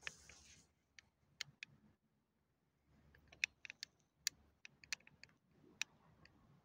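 Quiet background with about a dozen faint, sharp clicks and ticks at uneven intervals, and a near-silent gap about two seconds in.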